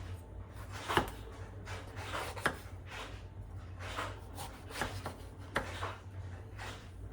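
Irregular light knocks and rubbing of objects being handled, about one every half second to second, over a steady low hum.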